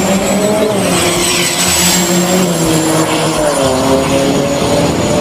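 A vehicle engine running steadily, its pitch wavering slowly up and down, with a faint high whine above it.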